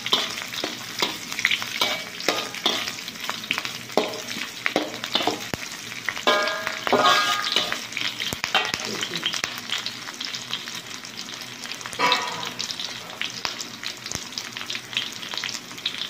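Onion, ginger, garlic, lemongrass, chillies and curry leaves sizzling in hot oil in a metal wok while a metal slotted spatula keeps turning them, with many quick clicks and scrapes of metal on metal. Longer scrapes come about six to seven seconds in and again around twelve seconds in.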